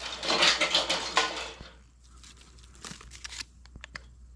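Dry twigs and kindling rustling and crackling as they are handled and pressed into a small metal fire stand, loud for the first couple of seconds. Then fainter rustling and a few sharp clicks near the end.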